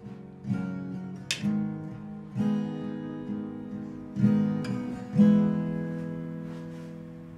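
Background music: acoustic guitar strumming chords, each strum ringing out and fading before the next.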